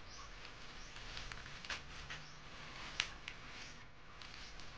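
Scissors snipping through plastic bubble wrap and packing tape, with the wrap crinkling under the hands: scattered short, sharp snips, the loudest about three seconds in.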